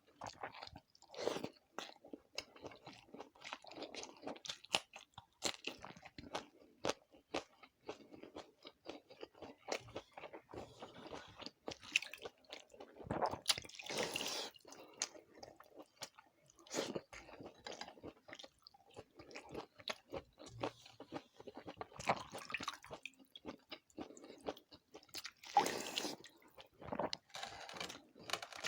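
Close-miked chewing of food with many sharp, crisp crunches throughout, and a couple of longer, louder noisy bursts.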